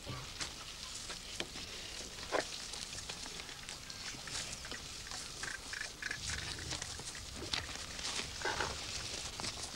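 Field sound of bullocks being yoked to a wooden bullock cart: scattered knocks, clicks and scuffs of wood, rope and hooves, with a few short calls in between, three quick high ones about halfway through.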